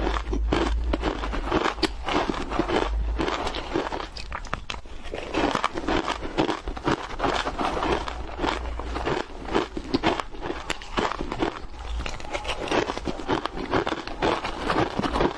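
Crushed ice crunching steadily, close-miked: chewed mouthfuls of ice mixed with a metal spoon scooping and scraping through the ice in the bowl.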